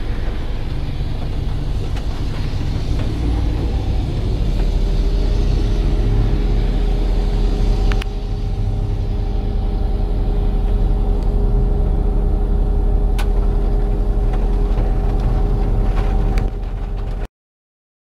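Steady low rumble of an engine running, with a hum that rises slightly in pitch about four seconds in and then holds steady. There are a few sharp clicks, and the sound cuts off suddenly shortly before the end.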